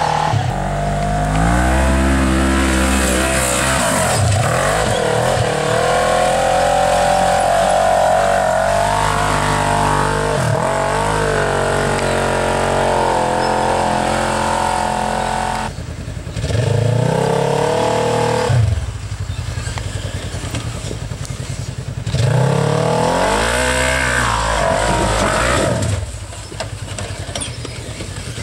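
Rock bouncer buggy's engine revving hard in repeated surges, its pitch rising and falling as it claws up a loose dirt hill, with a few sudden drops where the throttle lets off.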